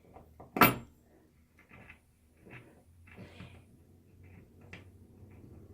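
A sharp click about half a second in, then faint scattered clicks and scrapes of a hand screwdriver being worked on the towel-rack screws.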